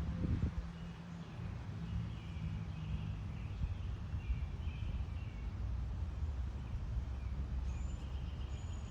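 Outdoor backyard ambience: a steady low rumble with faint, scattered bird chirps and a couple of thin high whistles near the end, after a brief knock at the start.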